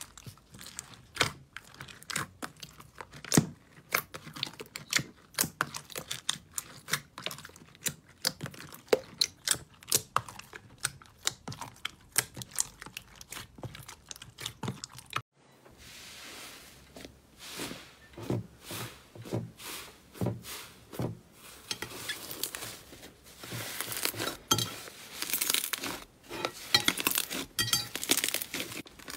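Slime being squeezed, stretched and poked by hand, giving many irregular sticky pops and crackles. About halfway through the sound cuts abruptly to a denser, crispier crackling.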